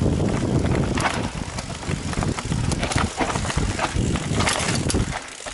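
Mountain bike ridden over a rough dirt trail: tyre noise with the chain and frame rattling in many sharp clicks and knocks, and wind on the microphone. It quietens briefly near the end.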